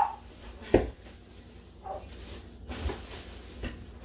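Kitchen handling sounds: a single sharp knock about a second in, like a cupboard door or an item set down on the counter, then a few faint clatters.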